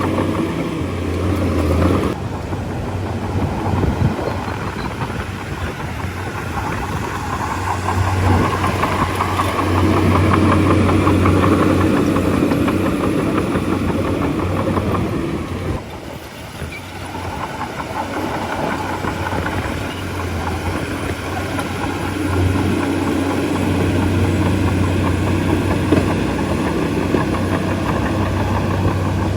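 Heavy diesel engine of a bulldozer running under changing load, its drone swelling and easing every few seconds, with a brief drop in level around the middle.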